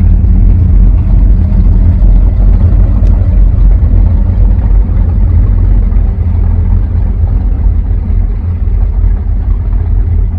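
Steady, loud low rumble of a motorboat engine running close by, cutting off suddenly at the end.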